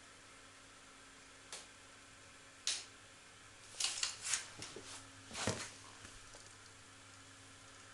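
A few light, sharp clicks and taps over a faint, steady room hum: single clicks about a second and a half and nearly three seconds in, then a quick cluster of taps and a slightly heavier knock midway.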